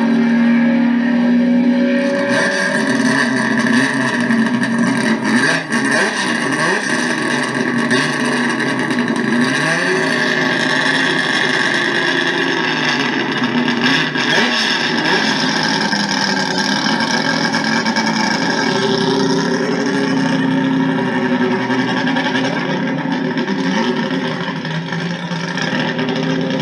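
Turismo Carretera race car engines running loud and revving, with the pitch climbing in the first couple of seconds.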